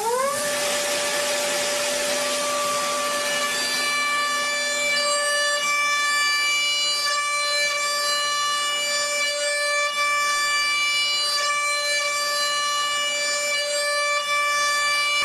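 Metalworking machine tool's motor spinning up with a rising whine at the start, then running at a steady speed with a high, even whine. A hiss over it fades out after the first few seconds.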